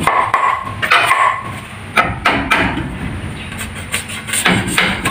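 Green bamboo pole being split with a machete: irregular sharp knocks and cracking as the blade is worked down into the pole.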